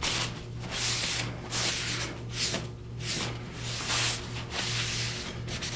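Cloth pad wiping shellac over a wooden stand, a quick series of hissing rubbing strokes, roughly one or two a second.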